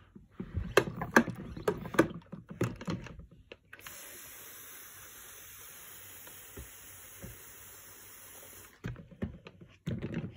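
Hand-pump pressure sprayer: a run of quick pumping strokes to build pressure, then a steady hiss of water mist spraying for about five seconds that cuts off suddenly, followed by a few handling knocks.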